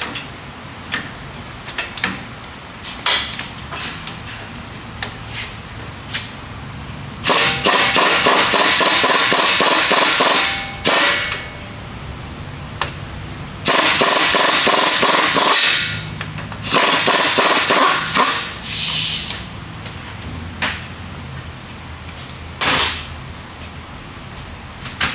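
Impact wrench hammering in three bursts, about three and a half seconds, then two, then one and a half, loosening a 13/16 nut at the upper control arm's ball joint. Single metallic clinks of tools come between the bursts.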